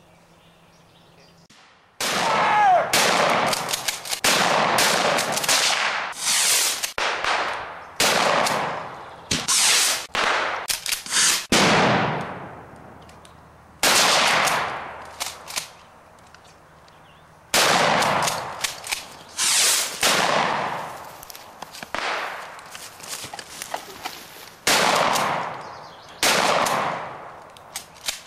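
Gunfire from several guns, starting about two seconds in: shot after shot, each with a long echoing tail, with a fast flurry of shots in the middle.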